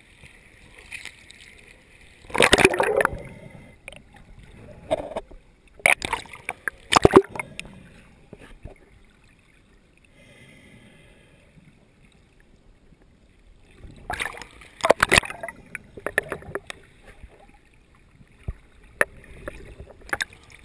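Seawater splashing and sloshing against a waterproof camera as it bobs at the surface and dips under, in several loud bursts, with a muffled, quieter stretch in the middle while the camera is underwater.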